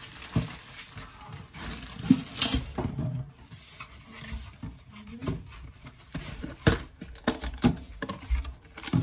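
Household handling noises: scattered knocks, taps and rustling as grocery packages are handled and put away.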